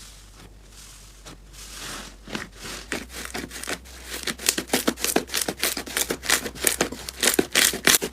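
Slime being squeezed and poked, giving off many small pops and crackling clicks that come faster and louder from about two seconds in.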